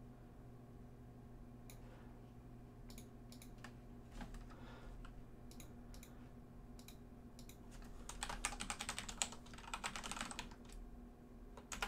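Faint computer keyboard typing: scattered key clicks, then a quick run of rapid typing about two-thirds of the way through, over a steady low hum.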